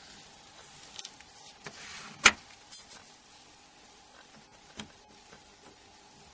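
A few small clicks and taps as a mobile phone's plastic parts are pried apart with an opening tool. The sharpest click comes about two seconds in, over a faint steady hum.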